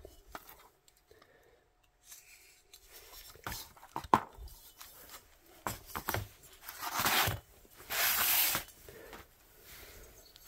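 Aluminium VW cylinder heads being handled on a cardboard sheet: a few light knocks, then two loud scraping rubs about a second each.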